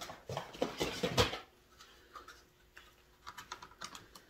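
Tools and packaging being handled: a burst of rustling and light clatter in the first second and a half, then a few small clicks and taps near the end.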